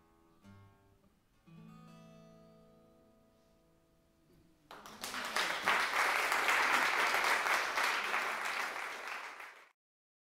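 Final notes of an acoustic guitar and fiddle ring out and fade. About five seconds in, an audience breaks into applause, which cuts off suddenly near the end.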